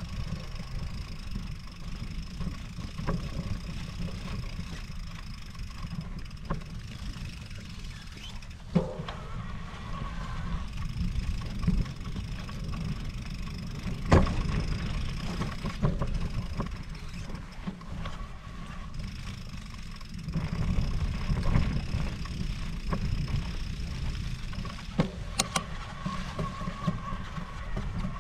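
Riding an electric mountain bike over rough ground: wind rumbling on the microphone, with sharp knocks and rattles from the bike over bumps, the loudest about halfway through. A faint steady high whine comes and goes.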